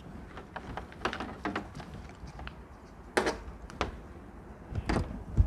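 Scattered clicks and knocks of an HDMI cable and plastic TV-box parts being handled and plugged in, with a sharper knock about three seconds in and another near the end.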